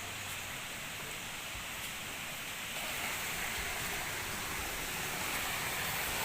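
Steady rushing roar of a waterfall, growing a little louder about halfway through.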